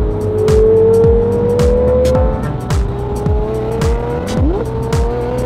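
Background hip-hop-style music with booming bass hits that drop in pitch and sharp hi-hat ticks, over a slowly rising held tone.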